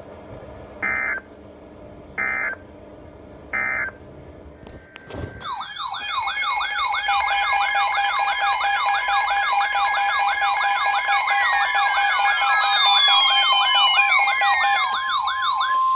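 Emergency alert tones: three short bursts of EAS header data, then from about six seconds several electronic sirens warbling fast together. Falling tones sweep down near the end, and a steady single tone holds over the last two seconds.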